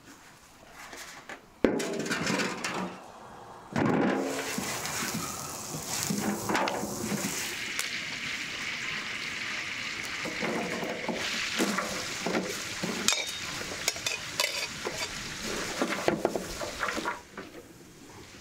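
Food sizzling in hot oil in a pan, starting suddenly about two seconds in, with clinks and scrapes of a utensil stirring against the pan.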